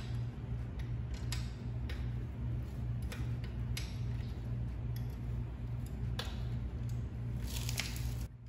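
Metal clicks and clinks as a hydraulic disc-brake caliper and its mounting bolts are handled and fitted onto a caliper bracket, with a cluster of quick clicks near the end. A steady, evenly pulsing low hum runs underneath.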